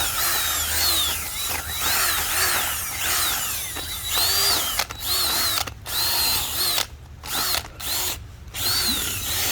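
Power drill with an old drill bit boring into hard, dry clay ground. The motor's whine rises and dips over and over as the bit bites and frees in the soil, and the drill stops briefly several times in the second half.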